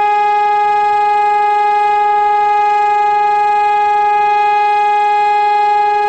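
HOWLER-M electronic siren sounding one steady, unbroken tone through its horn loudspeaker, rich in overtones: the continuous test tone of a Czech siren test.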